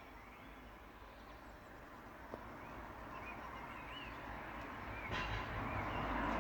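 A bird singing short chirping phrases while the noise of an approaching vehicle grows steadily louder and comes to dominate near the end, with one sharp tick a little past two seconds in.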